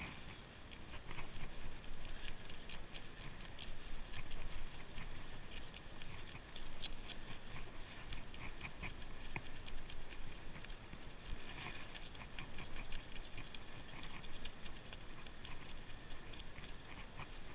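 Serrated knife scraping the scales off a rockfish inside a plastic bag: a rapid, irregular run of rasping scrapes and clicks, with the plastic bag crinkling under the hands.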